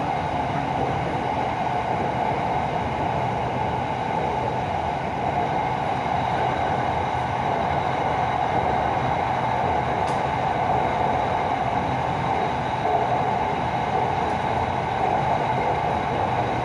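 SRT Red Line electric commuter train (Hitachi EMU) running at speed on an elevated track, heard from inside the carriage: a steady rumble and whir of wheels and motors.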